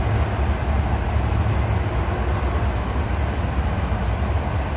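Steady low outdoor rumble with a faint, pulsing high tone running through it.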